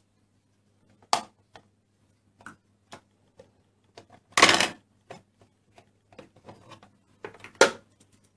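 Plastic Play-Doh moulds and tools being handled on a table: scattered clicks and taps, with a louder scraping clatter about halfway and a sharp click near the end.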